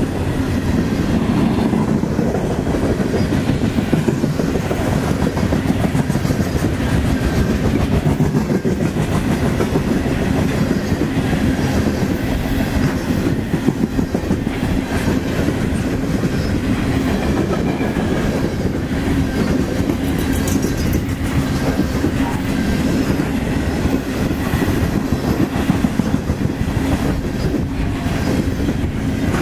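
Loaded open-top trash cars of a CSX freight train rolling past, a steady rumble with the wheels clicking rapidly over the rail joints.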